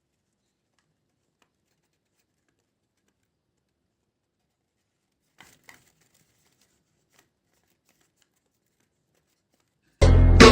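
Near silence for most of the stretch, with two faint short clicks about halfway through. Loud music with a heavy bass cuts in suddenly near the end.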